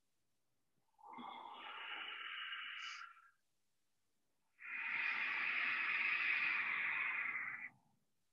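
Ujjayi breathing, the hissing ocean-like breath of yoga practice: two long breaths drawn through a narrowed throat, the second louder and longer than the first.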